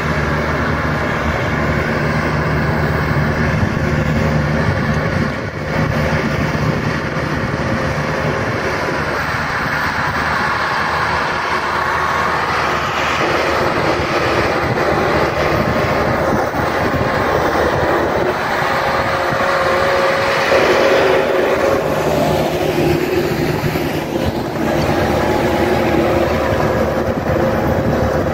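New Holland TS6.120 tractor's diesel engine running steadily under load while pulling a heavy disc harrow, with dry soil being worked; the engine note shifts a couple of times along the way.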